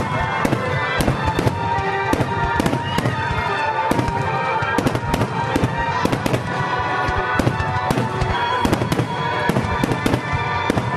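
Aerial fireworks bursting in a rapid, unbroken string of booms and cracks, several a second, over music with sustained tones.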